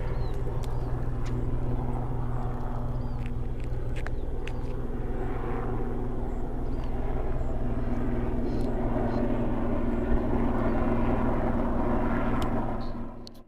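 A steady low engine hum that grows a little louder in the second half, with small bird chirps and a few clicks above it; it fades out just before the end.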